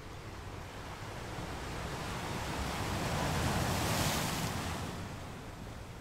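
Ocean surf on a sandy beach: a wave breaks and washes up the shore, its hiss swelling to a peak about four seconds in and then fading.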